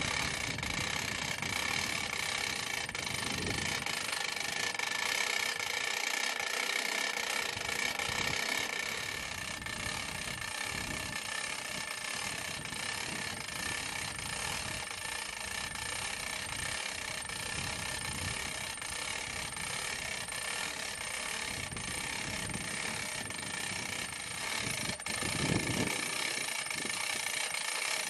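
Hand winch on a sawmill bed being cranked, its ratchet and gears clicking and knocking unevenly as it drags a log up the loading ramps, over a steady mechanical hum. A louder thump comes near the end.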